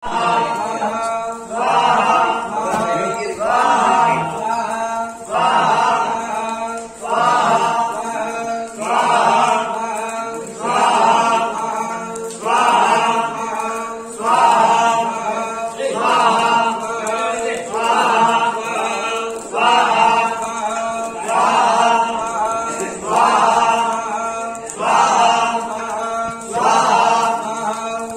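A group of men chanting Hindu havan mantras together in a steady rhythm, one short phrase about every two seconds.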